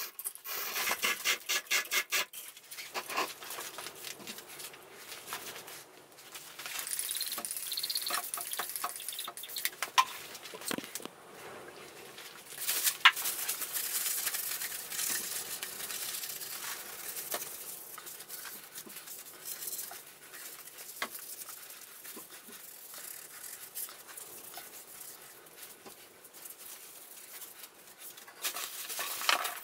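Steel hoist chain rattling and clicking as it is hooked onto a cast-iron milling table, then a cloth rubbing and wiping over the metal, with scattered light knocks and clicks.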